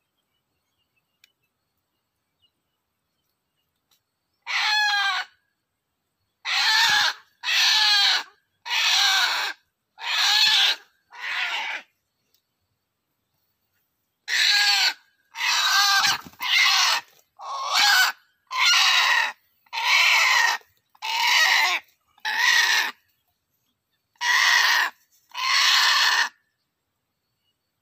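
Red junglefowl giving about seventeen loud squawking calls, each under a second long, in two runs with a short pause around the middle.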